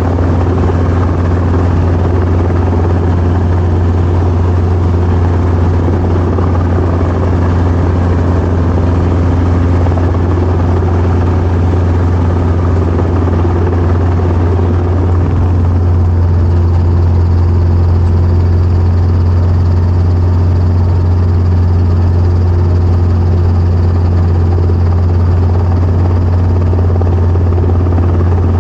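Helicopter's engine and rotor running with a steady, loud low drone. A faint high whine joins about halfway through.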